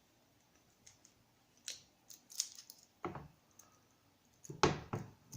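Small metal clicks, scrapes and clinks of hand tools against carburetor parts on a workbench, with a few heavier knocks in the second half.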